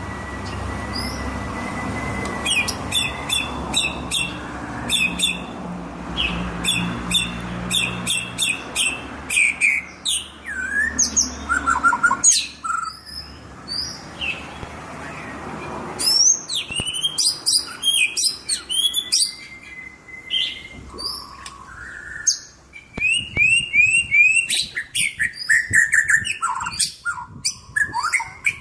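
White-rumped shama singing in full voice: rapid runs of sharp chipping notes mixed with sweeping whistled phrases, broken by short pauses. A low background rumble sits under the song for the first half.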